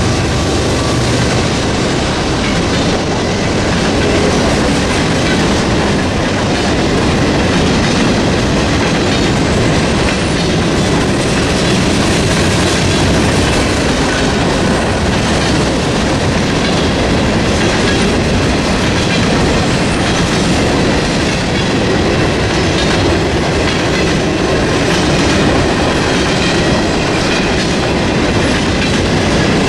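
Freight train of covered hopper cars rolling past at steady speed, the wheels clattering continuously over the rails, with the crossing's electronic bell ringing underneath.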